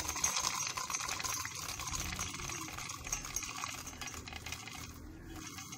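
Roasted peanuts poured from a steel bowl into an empty stainless-steel mixer-grinder jar, rattling against the metal and against each other as a dense run of small clicks that thins out near the end.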